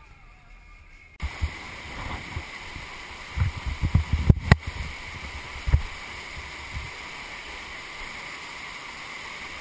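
Quiet car-interior hum that cuts about a second in to the steady rush of a flood-high whitewater river. Low thumps and knocks come in a cluster in the middle, with one sharp click.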